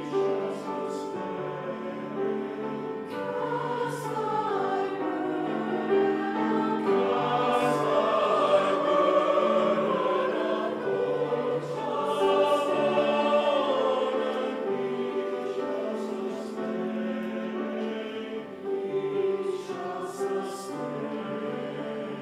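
Mixed-voice church choir singing a slow sacred anthem in sustained chords, with crisp 's' consonants from the singers.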